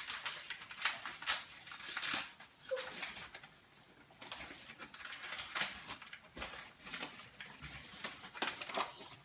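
Rustling and crinkling of a sugar bag with clicks and scrapes of handling as granulated sugar is measured out, busiest in the first couple of seconds.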